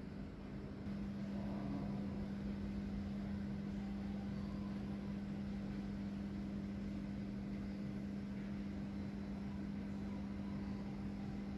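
Steady low mechanical hum of machinery in an empty underground metro station, over faint background hiss; it sets in abruptly about a second in and then holds unchanged.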